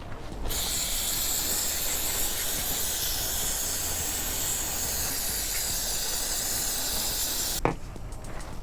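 Aerosol cleaner spray can hissing in one long continuous spray of about seven seconds, used to clean motorcycle carburetor parts. It stops abruptly near the end with a brief click.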